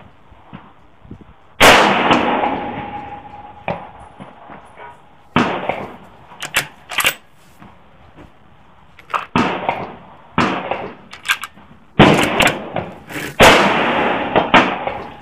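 Bolt-action rifle gunfire: four loud shots, each trailing off in a long echo, the last two about a second and a half apart. Quieter clicks and knocks come between the shots.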